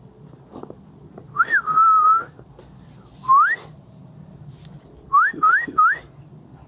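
A person whistling to call dogs: a rising whistle that levels off into a held note, a second rising whistle, then three short rising whistles in quick succession near the end.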